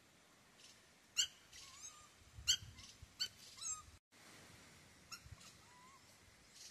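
A few short, sharp, high-pitched animal squeaks, each over in a moment, about a second apart, with fainter gliding whistles between them. The sound drops out completely for a moment about four seconds in, and one weaker squeak follows.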